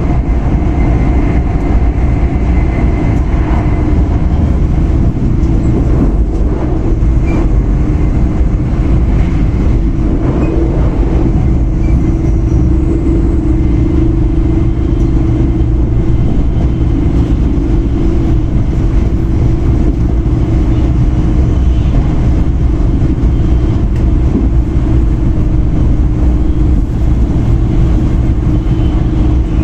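Running noise inside a moving E5 series Shinkansen car: a steady heavy rumble with a hum that strengthens in the middle and then eases.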